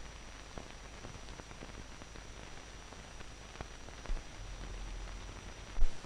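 Surface noise of an old optical film soundtrack: steady hiss with a faint thin high whine and a low rumble, scattered crackles and pops, and two low thumps, one about four seconds in and one near the end.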